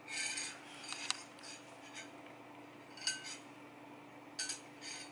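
Cat eating salmon bake from a small ceramic plate: irregular short clinks and clicks as it bites and licks at the food against the plate, with a sharp click about a second in.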